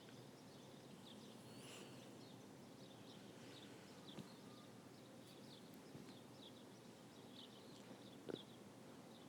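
Near silence: faint room hiss with faint, short high bird chirps repeating in the background, and one soft click near the end.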